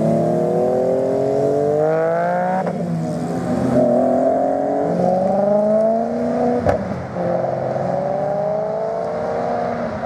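Car engine accelerating, its pitch climbing in long rising sweeps that drop back at gear changes, about two and a half seconds in and again near seven seconds, with a short sharp click at the second change.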